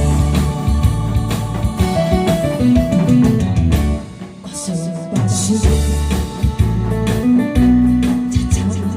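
Instrumental trot music with guitar and a drum kit, with a brief drop in loudness about four seconds in.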